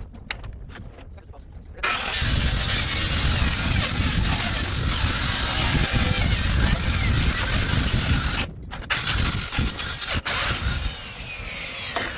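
Circular saw with a metal cutoff blade cutting through a stack of clamped metal siding panels, starting about two seconds in. It breaks off briefly past the middle, cuts again, then spins down with a falling whine near the end.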